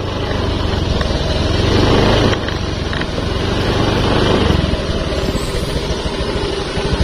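Motorcycle engine running at a steady pace while riding, its rapid firing pulses under a steady rushing noise.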